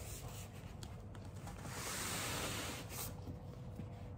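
Faint rubbing and rustling of packaging being handled, with a longer, louder rub about two seconds in.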